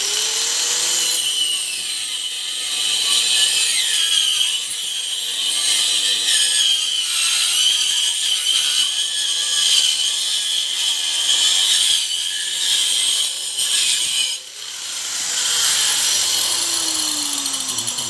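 Handheld electric angle grinder with a cutting disc slicing through a square wooden post: a loud, steady, high-pitched grinding whine. It dips briefly about two-thirds of the way in, and the motor's pitch falls near the end as it winds down.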